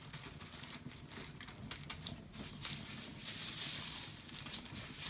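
Newspaper wrapped around a sweet potato being wetted with water: crackly pattering and rustling of wet paper, louder in the second half.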